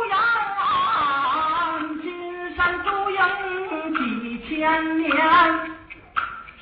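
A singer performing zhubanshu, the northern Chinese bamboo-clapper storytelling ballad, in long melodic sung phrases, with an occasional sharp clack of the bamboo clappers.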